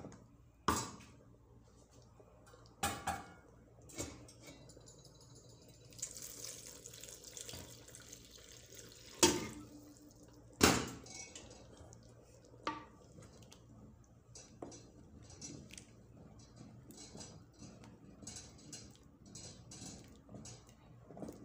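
Wooden spoon stirring and mashing wet rice in a granite-coated pot, with scrapes and scattered knocks against the pot. Two sharp knocks near the middle are the loudest. Just before them comes a few seconds of hiss.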